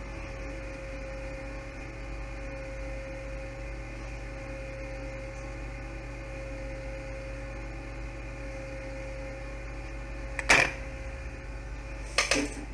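Steady electrical hum with a thin steady tone, from bench equipment. Two sharp taps of a tool against a hard surface come near the end, about two seconds apart, the second a quick double tap.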